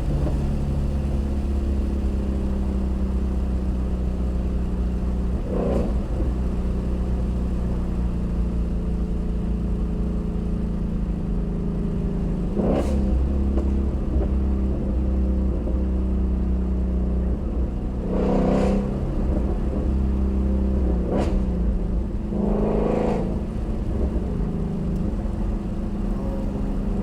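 Shelby GT350R's 5.2-litre flat-plane-crank V8 running under way at fairly steady revs. A handful of short, sharp noises break in at irregular intervals, about five in all, two of them close together past the middle.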